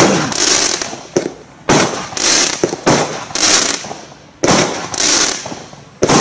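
Cyber Force firework cake firing shot after shot: about six sharp bangs, each followed by a fading hiss.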